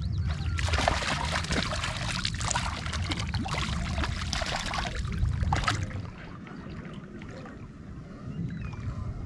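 Water splashing and sloshing with crackly handling noise, stopping about six seconds in, over a low rumble of wind on the microphone.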